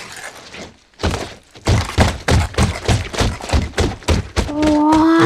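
A run of thumps beaten faster and faster like a drum roll. Near the end a voice comes in with a long held note that rises slightly, a 'ta-da' as the tiger jumps through the hoop.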